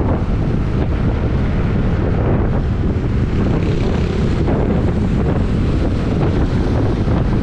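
Steady wind buffeting on the microphone of a moving action camera: a constant low rumbling noise with no clear engine note.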